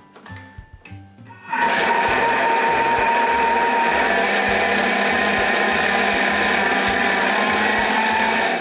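Thermomix kitchen robot with its blades running for about seven seconds, chopping vegetables finer in the jug: a steady, loud whirring that starts about a second and a half in and stops abruptly near the end. Before it starts there are a few small clicks from the controls being set.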